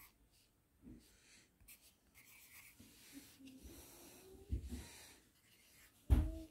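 Pencil writing digits on a workbook page: short, faint scratching strokes, with a louder thump near the end.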